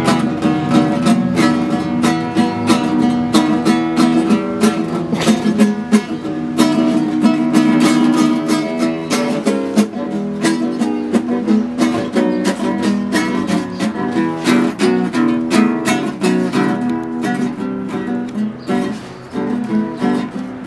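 Nylon-string classical guitar played fingerstyle: a continuous run of quick plucked notes and chords.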